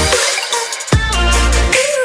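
Electronic background music with heavy bass: a sharp downward sweep about a second in brings the bass back in, under gliding synth tones.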